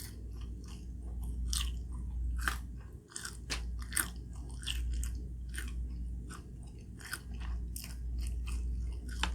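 A person chewing food close to the microphone, with many small sharp mouth clicks and crunches at an uneven pace, over a steady low hum.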